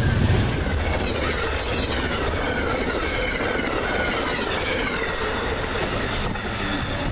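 Amtrak passenger train passing close at track speed: the GE P42 Genesis diesel locomotive's engine is loudest in the first half-second, then the Amfleet coaches rush by with steady rail noise and a wavering high wheel squeal.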